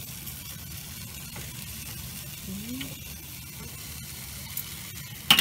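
Sauced pork chops sizzling steadily on a charcoal kettle grill, with a single sharp clack near the end.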